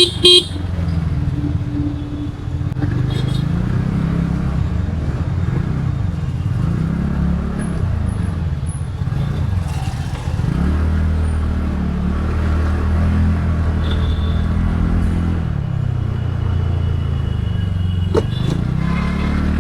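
TVS Ntorq 125 scooter's single-cylinder engine running while being ridden, its pitch rising and falling with the throttle, then running steadier about halfway through. Two short sharp sounds right at the start.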